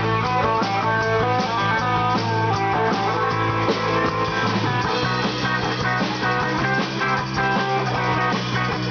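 Live rock band playing: electric guitar with a Les Paul-style body, electric bass and a drum kit, the guitar carrying a moving line of notes over a steady bass and beat.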